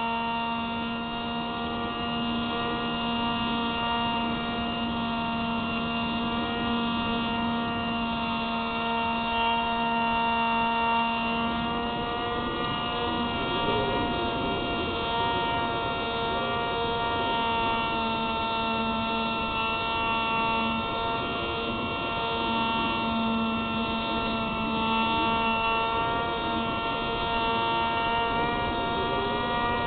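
Electric motor and propeller of a Spyhawk FPV plane, heard from on board, whining steadily at a constant throttle: a high hum of several steady tones that hardly change in pitch.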